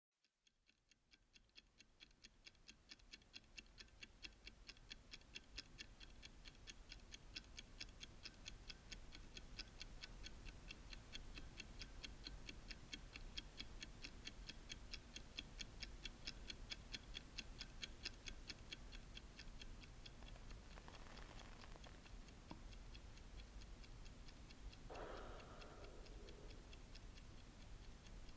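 Mechanical watch ticking steadily, about four ticks a second, fading in gently at the start.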